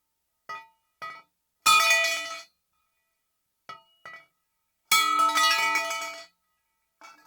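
Metal pipe falling onto a hard floor: two loud clangs that ring on for about a second, with a few lighter clinks between them.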